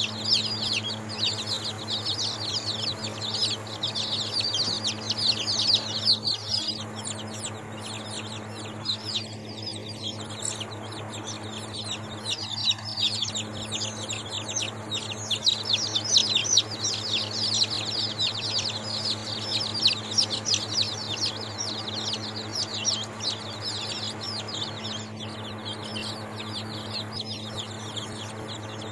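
A flock of week-old baby chicks peeping nonstop, many high-pitched peeps overlapping into a continuous chatter, over a steady low hum.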